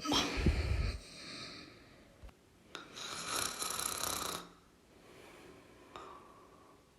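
A person snoring: a loud, low vibrating snore in the first second, then a long hissing breath about three seconds in and a fainter breath near the end.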